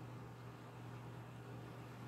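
Quiet room tone: a steady low hum under a faint, even hiss.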